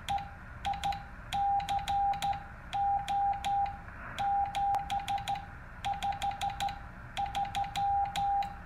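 Morse code (CW) signal: a single steady beep keyed on and off in short and long elements, grouped into characters with gaps between them, over a low hiss.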